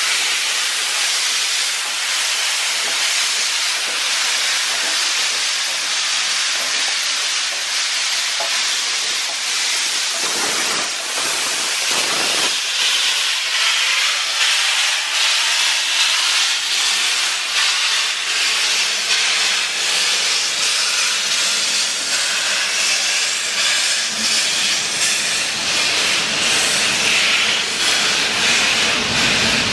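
Beyer-Garratt steam locomotive 6029 moving off slowly, with a loud steady hiss of steam blowing from its open cylinder drain cocks. Its carriages roll past near the end.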